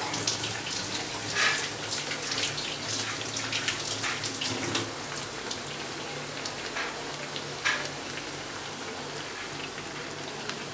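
A rice-flour rotti with drumstick leaves deep-frying in a kadai of hot oil: steady sizzling with frequent pops and crackles, which thin out after about five seconds.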